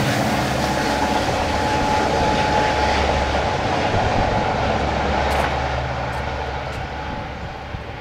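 Long Island Rail Road diesel locomotive and bilevel passenger train running past and pulling away, a dense steady rumble of engine and wheels on rail. It fades over the last few seconds as the train recedes.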